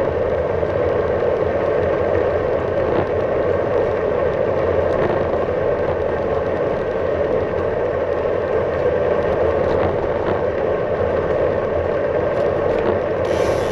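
Steady riding noise from a gravel bike rolling along a road: wind rushing over the camera microphone and the tyres humming on the tarmac, with a few faint ticks.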